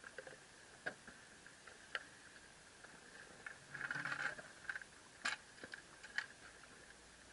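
Faint scattered clicks and knocks of spearfishing gear, long fins and a speargun, being picked up and handled against rock, with a denser patch of knocking and rustling about four seconds in, over a steady faint hiss.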